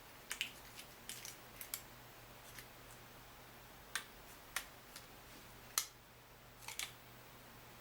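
Faint, irregular small clicks and light taps from the iPhone XR's metal screen backing plate being seated and screwed down with a mini screwdriver, about a dozen in all, with a louder single click near the end.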